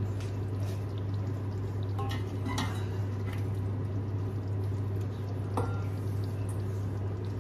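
A metal spoon clinking and scraping against a pot and a steel bowl as chicken curry is served out, a few light clinks about two seconds in and a short ringing clink near the end, over a steady low hum.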